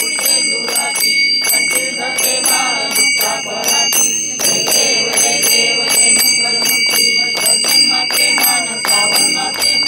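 Devotional music with a bell ringing continuously over a fast, even beat of sharp percussion strikes, with voices singing along.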